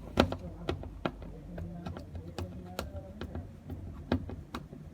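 Irregular sharp clicks and taps of a screwdriver and the plastic door-lock parts being handled while the door lock's screws are driven in, the loudest click about a fifth of a second in and another near the end.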